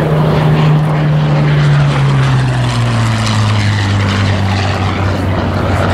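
Hawker Hurricane's Rolls-Royce Merlin V12 engine and propeller on a low flyby. The engine note drops in pitch as the plane passes, from about one to three seconds in, then holds steady at the lower pitch as it flies away.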